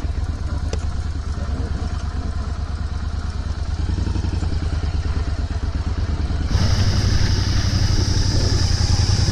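Motorcycle engine running steadily while the bike is ridden over a broken, potholed village road. About two-thirds of the way in the sound gets louder, with a hiss added on top.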